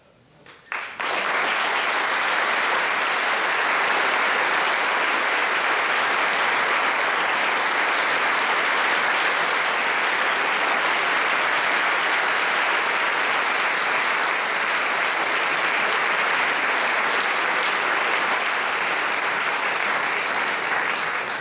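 Concert hall audience applauding: a brief hush, a few single claps, then about a second in dense, steady applause that carries on without letting up.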